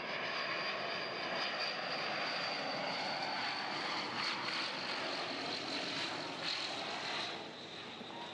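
Twin-turboprop cargo plane on a steep, low landing approach: engines and propellers running with a steady high whine that slowly falls in pitch as it passes, the sound easing off a little near the end as it touches down.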